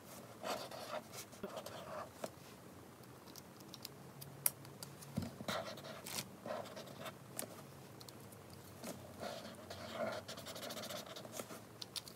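Faint scratching of a pen drawing on paper, in short, irregular strokes, with a few light clicks from handling.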